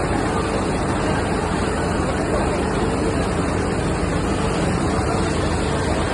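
Heavy rain and fast-flowing floodwater making a loud, steady rushing noise.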